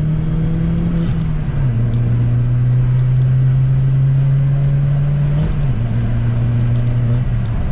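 Engine and exhaust of a turbocharged VW Golf MK4 GTI heard from inside the cabin while driving: a steady low drone whose pitch steps down about a second and a half in, rises briefly just after five seconds, then drops back.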